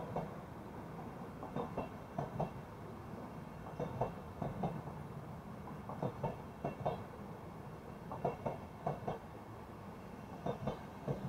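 Intercity passenger coaches rolling past, their wheels clattering over a rail joint: clusters of sharp clicks about every two seconds as each pair of bogies crosses it, over a steady rolling rumble.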